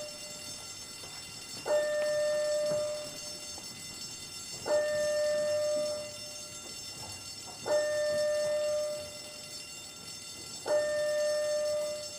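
Fire alarm sounding in slow pulses: a steady mid-pitched tone with a sharp start, held for about a second and a half and repeated every three seconds, four times.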